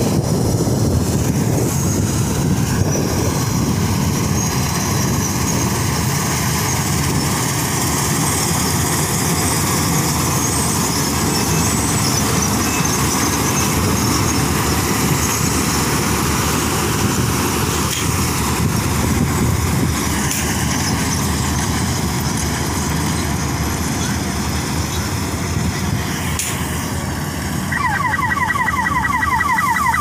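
Sunshine 1100 combine harvester running steadily under load as it cuts and threshes wheat: a loud, continuous machine noise. A rapid run of high, repeated chirps starts near the end.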